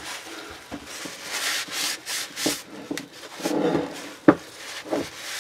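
Uneven scraping and rubbing strokes on a painted lathe tailstock part, working at hard paint, with scattered light clicks and one sharper click about four seconds in.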